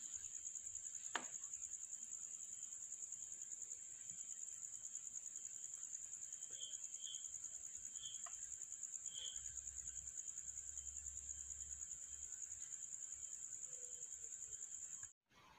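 A cricket chirping: one faint, high, steady trill with rapid, even pulsing that cuts off suddenly near the end, with a few faint clicks in the middle.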